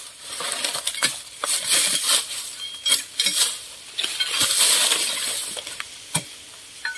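A long-handled hoe scraping and raking through dry fallen bamboo leaves and sheaths: a crackling rustle that comes and goes with each stroke, with sharp clicks and knocks as the blade catches stalks and twigs.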